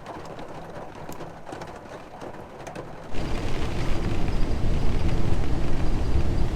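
Light rain pattering, then about three seconds in an abrupt change to a loud, steady low rumble of the camper van driving on the road.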